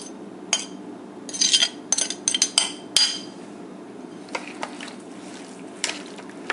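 Metal spoon clinking and scraping against a porcelain plate: a run of short, ringing clinks in the first three seconds, then softer scattered clicks.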